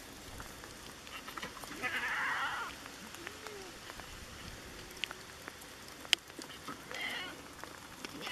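Goats bleating: a long high bleat about two seconds in and a shorter one near the end, over a light steady patter of rain. Two sharp taps come in the second half, the second of them the loudest sound.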